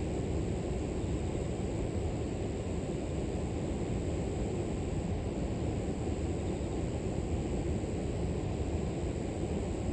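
River water flowing in a steady, even low rush, with a thin steady high-pitched hiss above it.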